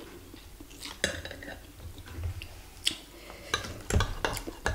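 Metal fork and spoon clinking and scraping against a ceramic bowl of bakso and noodles: a few separate clinks, then a busier run of clinks in the last second or so.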